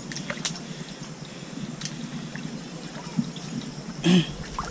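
Wet squelching and dripping of mangrove mud and water underfoot, with a few sharp clicks and one short, louder sound about four seconds in.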